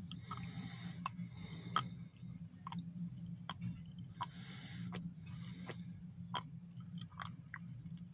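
Steady low hum inside a car, with scattered irregular clicks and a few short hisses close to the microphone.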